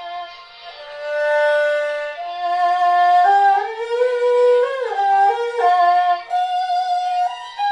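Erhu played with the bow, a slow melody of long held notes with sliding pitch changes in the middle.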